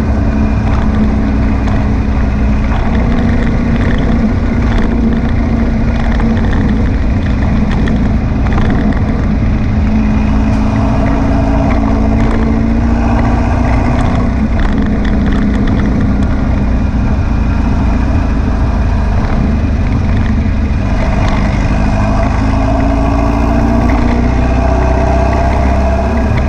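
Air-cooled VW flat-four engine of a twin-carburettor beach buggy running on a test drive, its note rising and falling with the revs. It is being checked for a misfire after a blocked idle jet was cleared and the carbs rebalanced.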